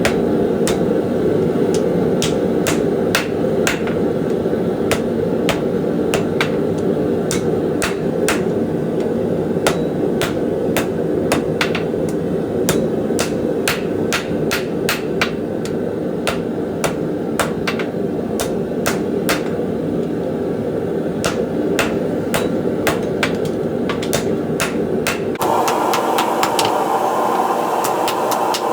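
Hammer blows on an anvil, about two a second, forging the steel of a farrier's rasp into a small knife blank, over a steady roar. Near the end the roar shifts higher and the blows thin out.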